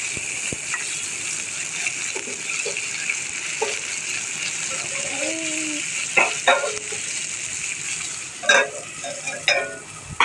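Potato and pointed gourd pieces frying in oil in a kadai, a steady sizzle. A few sharp knocks of a utensil against the pan come in the second half.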